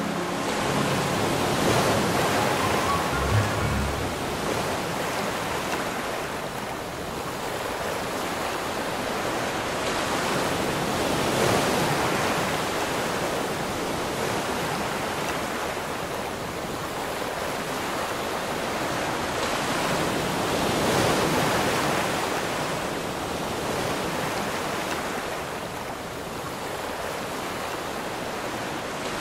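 Steady rushing noise of waves, swelling and easing every ten seconds or so. Music fades out in the first few seconds.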